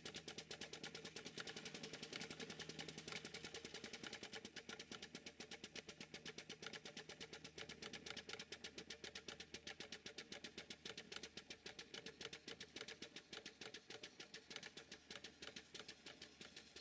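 Faint, rapid, even beat of a steam-driven rotative boiler feed pump on a model steam engine plant, pumping water into the boiler, at about five beats a second.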